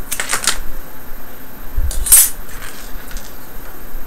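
Fingers handling the small metal and amber-taped end of a laptop LCD's cable, making crinkling and light clicking sounds: a quick cluster of crackles at the start and a sharper crinkle about two seconds in, over a steady background hiss.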